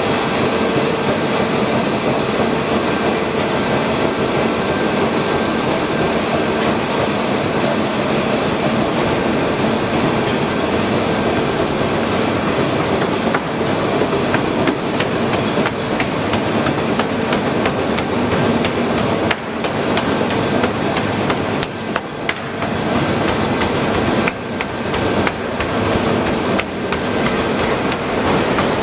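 Forging machine at work: a loud, dense, continuous clatter of metal impacts and machinery, with a few brief dips in the second half.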